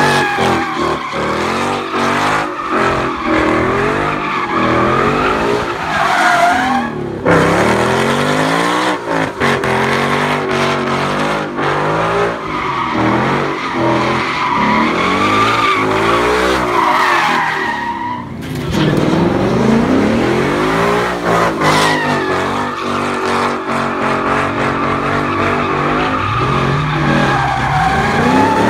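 Car doing donuts: its engine revs up and down hard while the tyres squeal almost without a break. There is a short lull about two-thirds of the way through before the revs climb again.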